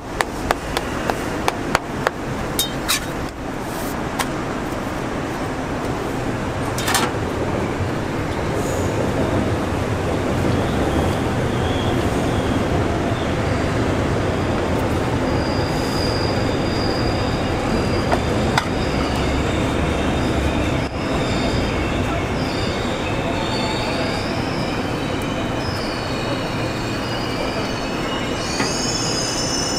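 Steady rumble of a train running past, with a high, wavering wheel squeal that comes in about halfway and is strongest near the end. A few sharp clicks in the first seconds: a spatula knocking on the crepe griddle.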